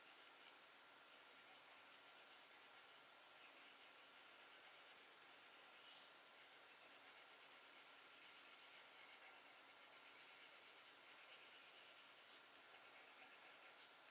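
Faint scratching of a drawing pen or pencil on paper, coming and going in short strokes over a low steady hiss.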